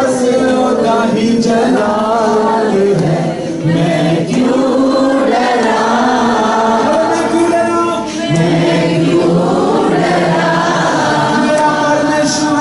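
Many voices singing together in a slow, chant-like worship song, with long held notes.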